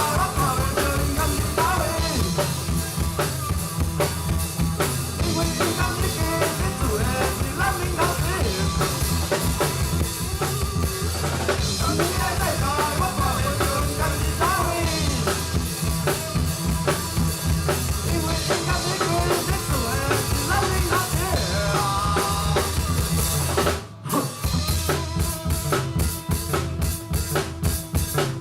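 Live band music driven by a full drum kit, with bass drum, snare and rimshots over a steady low end and wavering melodic lines. About 24 seconds in the music cuts out for a moment, then the drums come straight back in.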